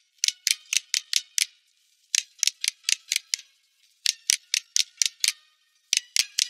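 Cartoon clicking sound effect: crisp, high clicks in quick runs of six, about five a second, with a short pause between runs, repeating like a ticking rhythm.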